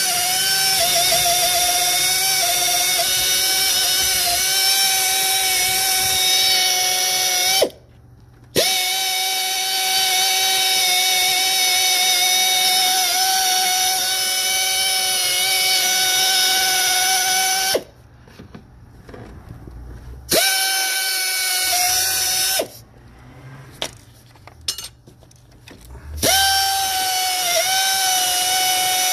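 Air-powered rotary brush tool running with a steady high whine as it scrubs baked-on oil sludge off an engine's camshaft and valve gear. It cuts out three times and starts up again each time: briefly after about eight seconds, for a couple of seconds a little before the middle, and for a few seconds later on.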